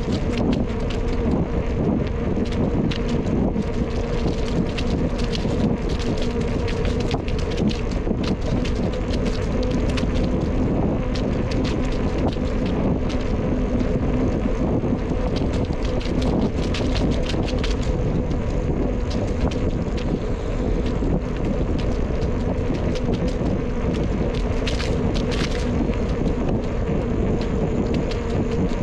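Wind rushing over the microphone of a camera on a moving bicycle, mixed with the rolling rumble of the ride. Through it runs a steady low hum, and short clicks and rattles come throughout, with a cluster of them near the end.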